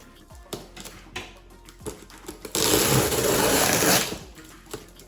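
Cardboard packaging being opened by hand: light taps and knocks of handling, then a loud harsh rasp lasting about a second and a half just past the middle.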